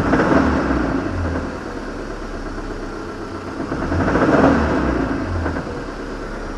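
GAZelle Next van's cold engine, still running on petrol, revved twice from idle, the second rise about four seconds in. It has a 'tyk-tyk-tyk' knock that the owner cannot place and wonders may call for a piston-group replacement.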